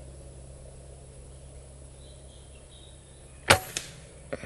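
A single shot from a Gamo Arrow .22 PCP air rifle about three and a half seconds in: one sharp crack, followed a moment later by a fainter second crack.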